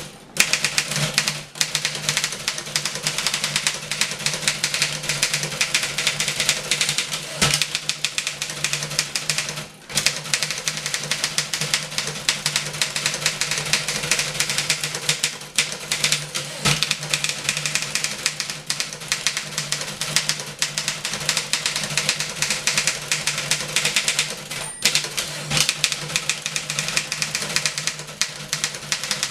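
1912 Underwood No. 5 manual typewriter being typed on at full speed: a fast, unbroken clatter of typebars striking, with a couple of brief pauses.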